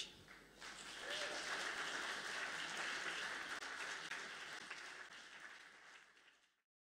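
Audience applauding, building up about half a second in, then fading away until the sound cuts off shortly before the end.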